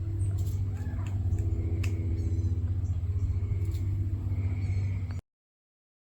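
A motor running steadily with a low, even hum, with faint animal calls and clicks above it; the sound cuts off suddenly about five seconds in.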